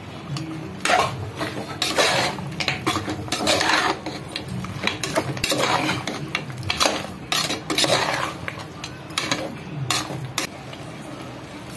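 Perforated steel ladle stirring mutton pieces in a metal pressure cooker: irregular scrapes and clinks of the ladle against the pot's side and bottom.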